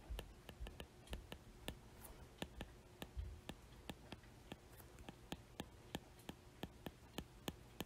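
Faint, irregular clicks and taps of a stylus writing by hand, several a second.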